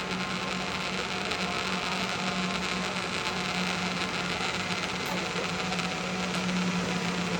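Zipline trolley pulleys running along the steel cable at speed, a steady whirring hum over a rushing noise.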